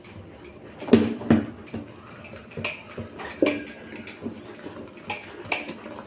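Whisk beating thick chilled cream in a stainless steel bowl, its wires scraping and knocking irregularly against the metal sides as the cream churns into butter.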